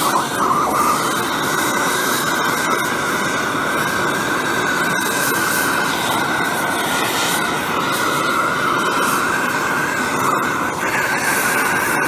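Two gas torches burning steadily on a copper tube coil: a hand-held oxyhydrogen torch fed by a water-electrolysis generator and a blue-flame pencil torch, together making a continuous loud rushing hiss. The sound brightens a little near the end.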